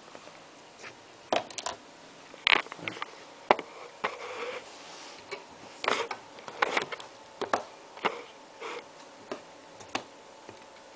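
Plastic clicks and knocks as the ABS plastic handle and muzzle ring of a rubber airsoft M4/M16 bayonet are worked onto the gun's barrel, with irregular sharp clicks about once a second amid light handling noise.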